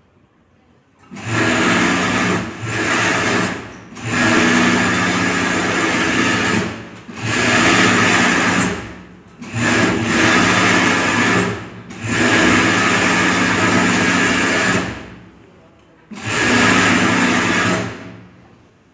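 Siruba mini cylinder-bed overlock sewing machine running in short bursts, about seven runs of one to three seconds each with brief stops between, as it stitches elastic onto innerwear fabric.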